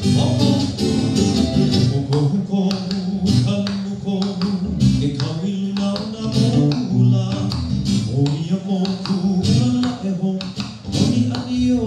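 Live Hawaiian music: acoustic guitar and ukulele strummed in a steady rhythm, with a voice singing along.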